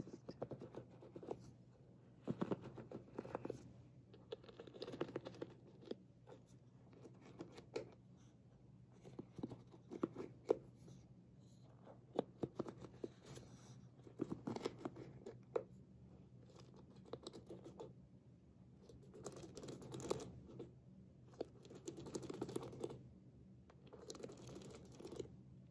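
Fingertips scratching and flicking across the wooden pins of a bamboo hairbrush, making irregular bursts of small clicks and scratchy rustles.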